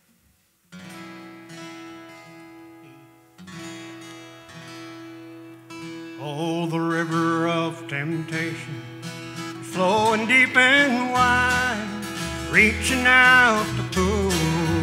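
Acoustic bluegrass gospel band starting an instrumental intro: strummed acoustic guitar chords ring out twice. About six seconds in, a wavering lead melody comes in, and upright bass joins near the end.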